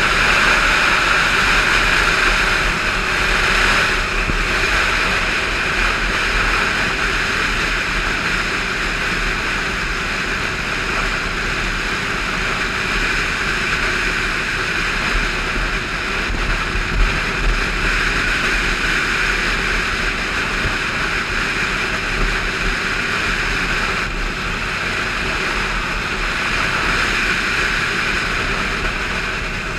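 Onboard sound of a motorcycle cruising at road speed: a steady engine drone mixed with wind rushing over the microphone.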